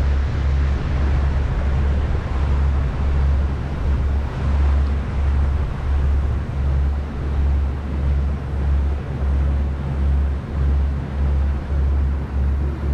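Tour boat under way on the river: steady motor and rushing water, with a strong low rumble that pulses unevenly.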